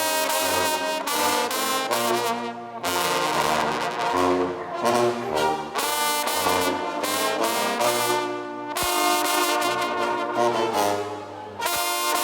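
A banda brass band playing live, with trombones and trumpets carrying the melody over a low bass line, in short rhythmic phrases of held notes.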